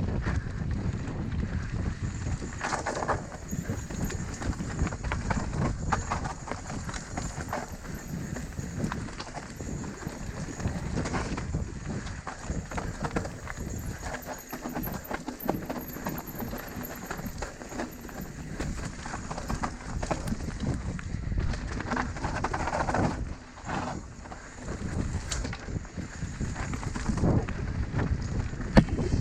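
Mountain bike riding down a rough dirt trail: the tyres rumble over the ground while the bike rattles and knocks without a break as it hits roots and rocks.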